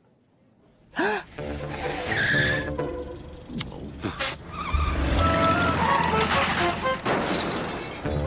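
Cartoon soundtrack of car sound effects, engine and screeching tyres, mixed with lively music. It starts about a second in after a near-silent moment.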